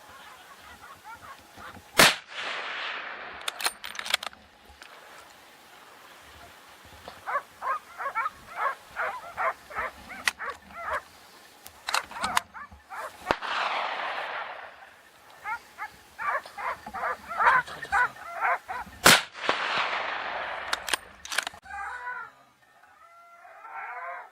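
Several gunshots, the loudest about two seconds in and again near the end, some trailing a long rolling echo. In between, hunting dogs bark in quick runs of about three to four barks a second.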